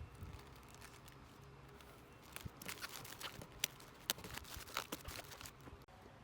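Packaging being torn open and crinkled by hand: a run of sharp crackles and clicks with rustling, starting about two seconds in and stopping shortly before the end.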